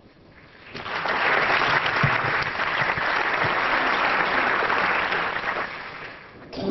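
Audience applauding in a large hall, swelling about a second in, holding steady, then dying away near the end.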